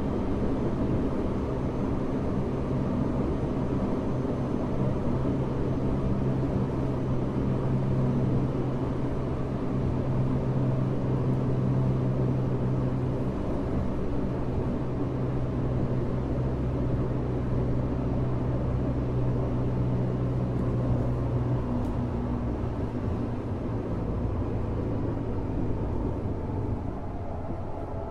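On-board running sound inside a Tokyo Metro 05 series car, heard at the car end: the steady rumble of wheels on rail under a low, steady hum. It gets a little quieter near the end.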